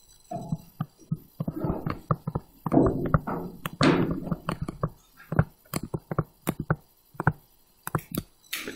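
Pen stylus tapping and scratching on a tablet screen as block letters are handwritten: many light, irregular taps with short scraping strokes between them.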